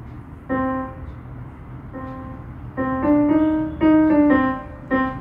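Yamaha PSR-E473 portable keyboard played in a piano voice: single notes picked out slowly and unevenly, with a quicker run of a few notes in the middle.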